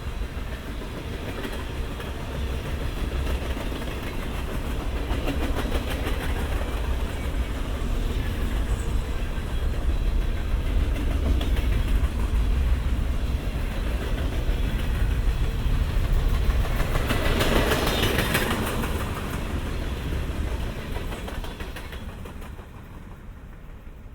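Freight train passing: a steady low rumble with the clickety-clack of wagon wheels over the rail joints. It swells to its loudest about three-quarters of the way through, then fades as the train moves away.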